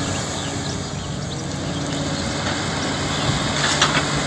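Kobelco hydraulic excavator's diesel engine running steadily as it swings a loaded bucket. Near the end there is a short clatter as soil and stones pour into a dump truck bed.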